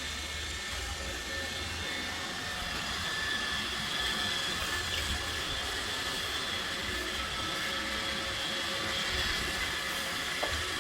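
iRobot Roomba 971 robot vacuum running: a steady whir of its vacuum motor and brushes with a high whine held on a few fixed pitches. A faint tick comes near the end.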